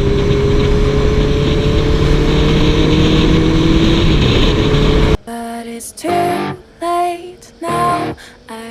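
Honda CB650F inline-four motorcycle engine running under way, its pitch rising slowly as it pulls, over a loud rush of noise. About five seconds in it cuts off abruptly to music with plucked guitar notes.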